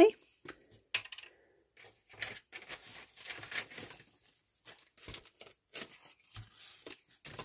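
A glue stick's cap pulled off with a sharp click, followed by a lighter click as the cap is put down. The glue stick is then rubbed in short strokes over the back of a paper label, with a few soft taps.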